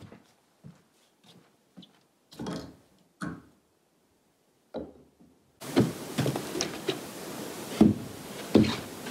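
Scattered light knocks and clicks with quiet gaps between them. A little past halfway a steady hiss sets in, carrying several heavier thuds.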